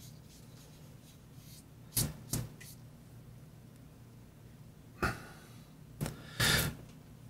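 Small handling noises from fingers working talc onto a fountain pen's ink sac: a pair of light taps, two more a few seconds later, then a short brushing rub near the end.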